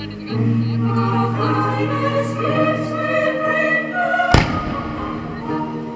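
Choral music with sustained held notes, and one loud firework bang about four seconds in.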